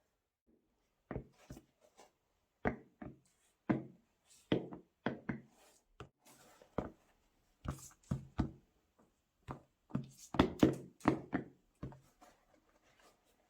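A run of irregular knocks and taps, about twenty, each short and slightly ringing, with the loudest cluster a little after the middle.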